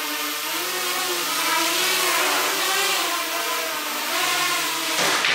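Mini quadcopter's four Suppo A1510 brushless motors and Gemfan 5030 propellers whining in flight, the pitch rising and falling as the throttle and stick inputs change.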